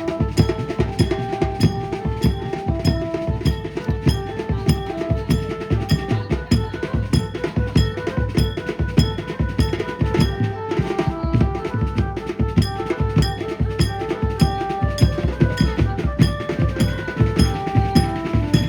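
Banjo-band music: a fast, steady beat of drums and cymbals with a melody of held notes played over it.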